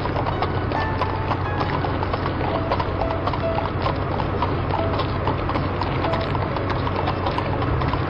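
Horse hooves clip-clopping, with many sharp hoof clicks over a steady low rumble.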